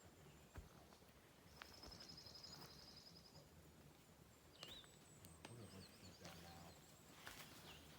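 Faint birdsong: a quick trill of high repeated notes about two seconds in, then a few short swooping chirps.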